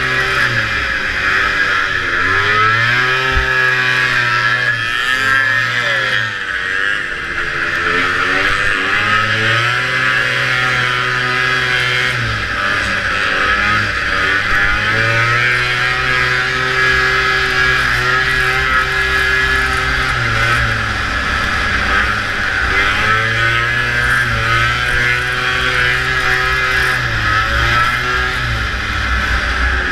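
Vintage racing snowmobile's two-stroke engine running hard, dropping off and climbing back in pitch again and again as the throttle is eased and reapplied, about every four to eight seconds.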